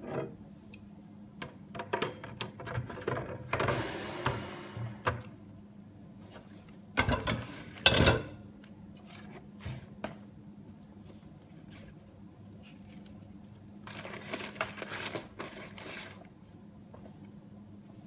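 A large roll of kraft paper being handled and loaded into a steel paper-wrapping dispenser: paper rubbing and scraping against the frame, with two loud knocks about a second apart near the middle.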